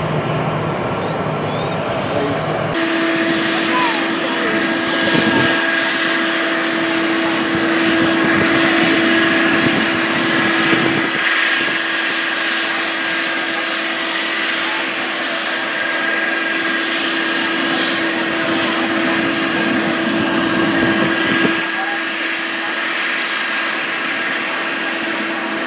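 A Boeing 777 climbing away after takeoff, its jet engines rumbling, cut off suddenly about three seconds in. Then a British Airways Boeing 777-300ER taxiing with its GE90 turbofans running at low thrust: a steady whine holding one pitch over a broad engine rush.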